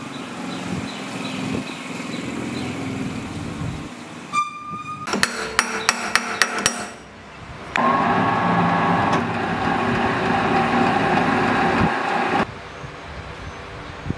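Machine hum, then about seven sharp, ringing metal-on-metal taps, then a metal lathe running steadily with a steel disc spinning in its chuck. The lathe sound cuts off suddenly about two seconds before the end.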